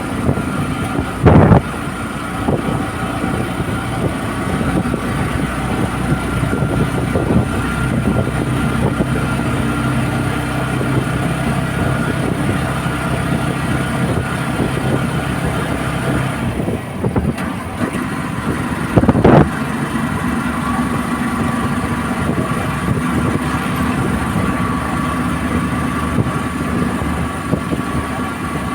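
A vehicle engine running steadily with wind noise, and two loud knocks, about a second in and about nineteen seconds in.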